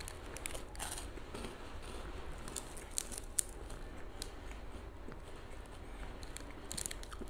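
Hanuta wafer with hazelnut-chocolate filling being bitten and chewed: quiet crunching with a few sharp crackles scattered through it, the sharpest about three and a half seconds in.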